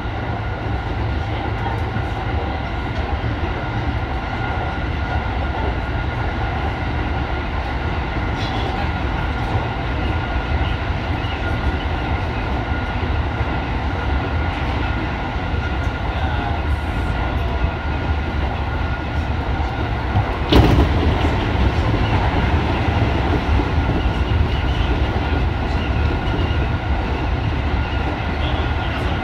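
JR 205-series electric train running at speed, heard from inside its leading cab car: a steady low rumble with a faint steady whine. About 20 seconds in, an oncoming train passes close alongside with a sudden bang of air and a louder rush of noise for a few seconds.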